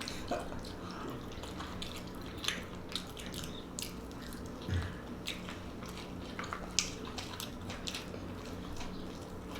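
Close-miked chewing of french fries: irregular wet smacks and mouth clicks, scattered a few per second, over a low steady hum.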